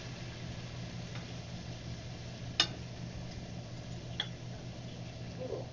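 A few sharp clicks of a spoon knocking against a stainless steel mixing bowl as food is stirred in it, the loudest about two and a half seconds in, over a steady low hum.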